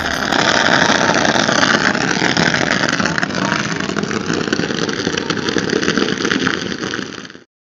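A battery salute of daytime firecrackers going off in a fast, unbroken crackle that stops abruptly near the end.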